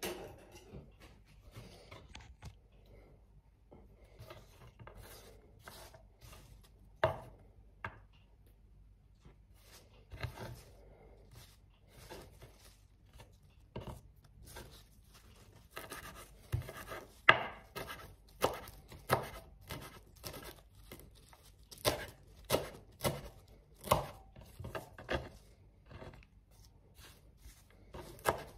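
Kitchen knife chopping a pile of fresh mint leaves on a wooden cutting board. There are a few scattered light taps at first, then from about halfway a run of sharp knocks of the blade on the board, roughly one to two a second.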